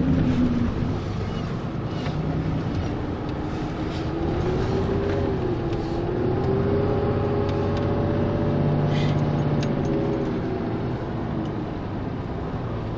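Pickup truck engine running as the truck drives slowly over a snow-covered street, heard from inside the cab. The engine note rises and falls gently in the middle of the stretch.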